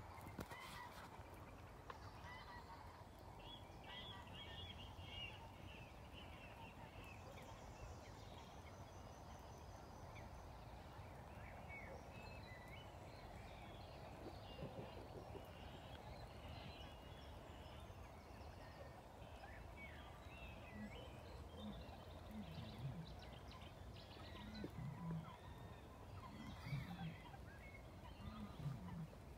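Faint bird calls: a scatter of short high chirps from the starling flock all along, joined about two-thirds of the way through by repeated short, deeper calls from other birds, over a steady low background rumble.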